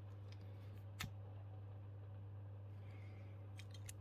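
Quiet room tone: a steady low hum, with one sharp click about a second in and a few faint ticks near the end.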